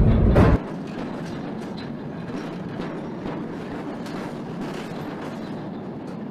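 Armored train's wagons rolling past close by: a steady rush of wheel noise on the rails with faint scattered clicks. It opens with a louder low rumble that cuts off abruptly about half a second in.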